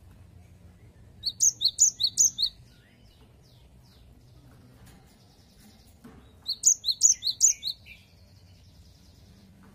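A cinereous tit (gelatik batu) singing two short bursts of its repeated two-note 'wucit wucit' song, high and whistled. Each burst lasts about a second, with the second coming several seconds after the first.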